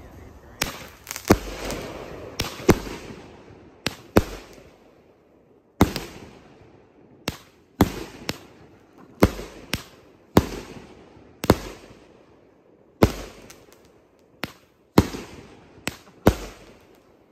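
A 200g 16-shot consumer firework cake firing shot after shot: sharp launch thumps and loud bursting reports overhead, often in close pairs, one to two bangs a second, each fading quickly.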